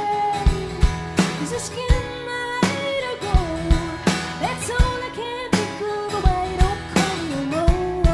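Live band music with a woman singing a bending melody over guitar chords and drum hits.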